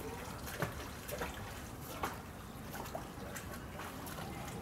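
Water trickling, with irregular light drips.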